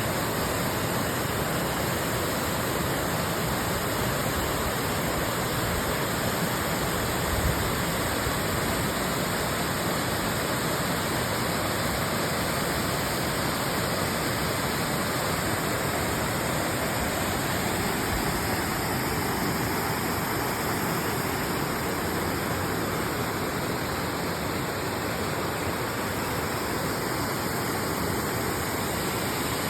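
Wind blowing through a field of cereal crops: a steady, even rushing hiss of stalks and ears stirring, with no letup.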